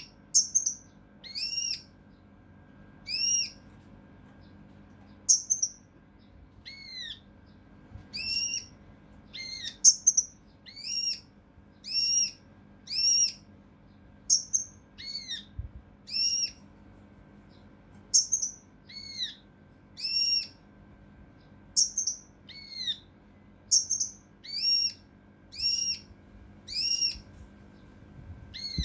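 A kinoi (cucak rante mas) songbird calling in a rapid string of short, harsh 'shot' notes. It gives about one note a second, each a quick arched whistle with several overtones, some notes doubled close together.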